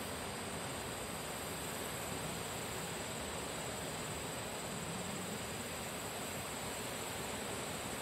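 Steady ambient hiss of a nature soundscape, even in level, with no distinct crackles, knocks or calls.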